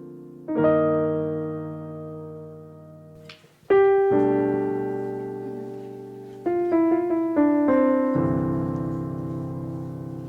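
Piano playing slow, sustained chords, each struck and left to ring out and fade, with a short run of quicker notes about two-thirds of the way through.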